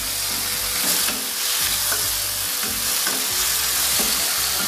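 Tomato wedges and sliced chilies sizzling in hot oil in a stainless steel wok, stirred with a wooden spatula that scrapes across the pan now and then. The sizzle is a steady, even hiss.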